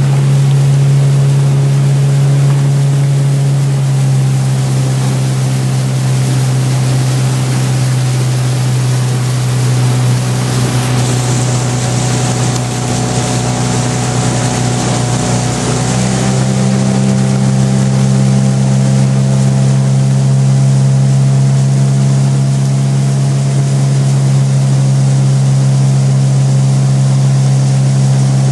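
Outboard motor of a coaching launch running steadily at cruising speed alongside a rowing eight. Its note shifts slightly about halfway through.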